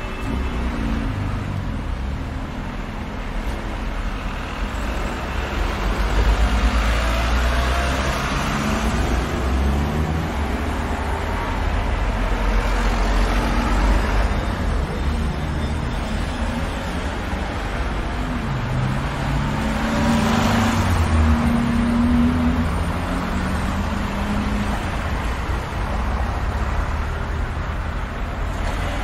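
Road traffic at a city intersection: a steady low engine rumble with several cars passing close by, swelling and fading in turn, the loudest pass about twenty seconds in.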